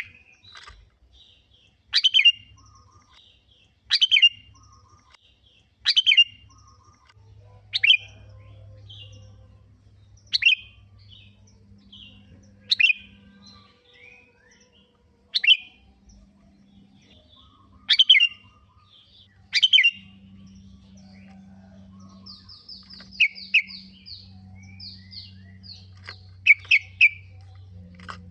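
Sooty-headed bulbul (kutilang) singing: loud, short call phrases, each opening with a sharp downward-sweeping note, repeated about every two seconds. Near the end they change to a quick run of high notes and then several fast calls.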